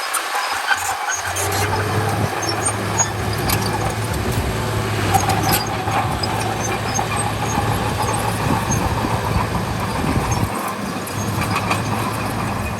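Bulldozer's heavy diesel engine running under load, its low hum coming in about a second in, with scattered high squeaks and clicks over the clatter of the machine working.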